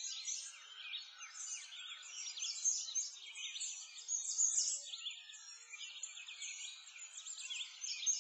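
Dense chorus of many small songbirds chirping and trilling at once, with quick rapid calls overlapping throughout and no low sounds beneath them.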